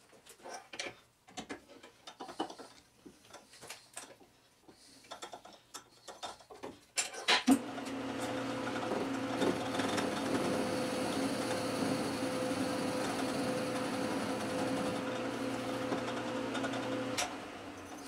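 Metal lathe: a run of clicks and knocks as a part is handled and clamped in the three-jaw chuck, then, about seven seconds in, the spindle starts and runs with a steady hum for about ten seconds before it slows near the end.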